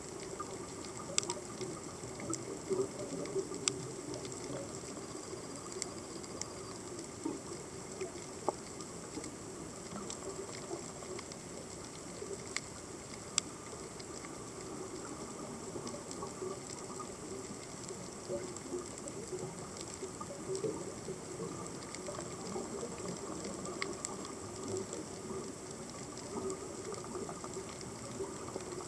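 Underwater reef ambience: a steady crackle with scattered sharp clicks, typical of snapping shrimp.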